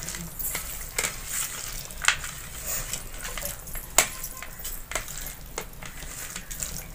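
A hand kneading raw chicken pieces in a wet spice marinade in a stainless steel plate: squelching and rubbing, with irregular sharp clicks against the metal, the loudest about two and four seconds in.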